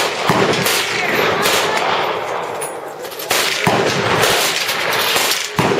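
Machine-gun fire: rapid, overlapping shots and automatic bursts, easing briefly about three seconds in and then starting up again.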